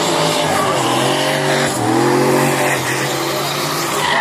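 Drift car's engine revving up and down as the car slides sideways, with tyres squealing through the smoke. The pitch rises and falls several times over a steady hiss of tyre noise.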